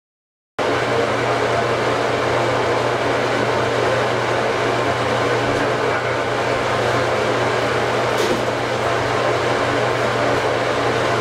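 Newly installed bathroom exhaust fan running: a steady whir of moving air over a low motor hum, starting abruptly about half a second in.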